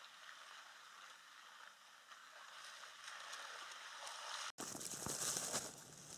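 Faint steady outdoor hiss, then a sudden cut about four and a half seconds in to louder close rustling and crackling.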